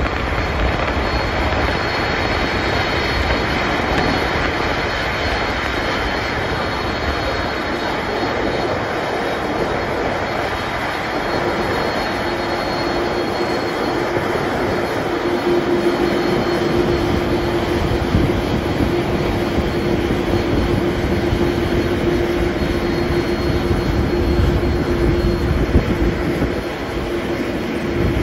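Boeing 747-400ERF freighter's four jet engines running at taxi power as the aircraft rolls slowly past: a steady rushing noise with a faint high whine. A steady low hum joins about eleven seconds in.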